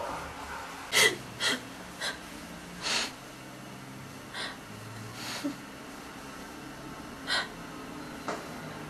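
A person breathing in short, sharp gasps, about eight of them at irregular intervals, over a faint low hum.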